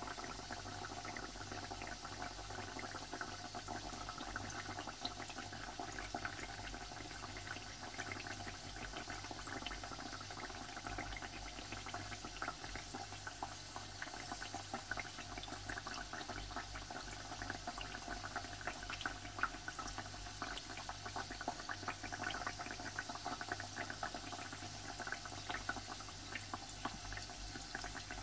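Sweet flour-dough tikkiyas deep-frying in oil in a karahi over a low flame: a steady, quiet sizzle with constant fine crackling.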